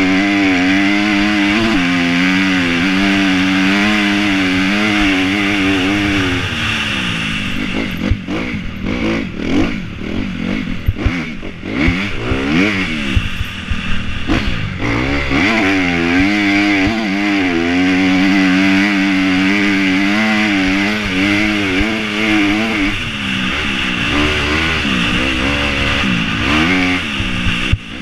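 Motocross bike engine running hard on the track, heard from the rider's helmet. Its revs hold fairly steady at first, then rise and fall quickly several times with a few sharp knocks through the middle, settle again, and swing up and down once more near the end.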